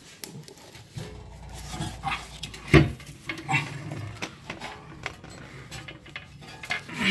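Irregular metal clinks and knocks from a rear differential, its custom bracket and long bolts being worked into place by hand, with one louder knock about three seconds in.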